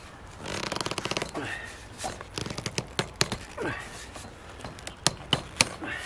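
Black corrugated flexible pipe being twisted and forced onto a PVC fitting: a fast ratcheting rasp as the ribs drag over the fitting, then a shorter one, with scattered sharp clicks and knocks from handling the pipe and fittings.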